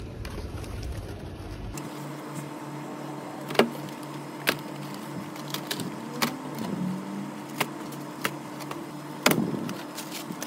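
Cardboard packets of frozen cutlets knocking sharply a few times as they are picked up and set down in a supermarket chest freezer, over a steady hum.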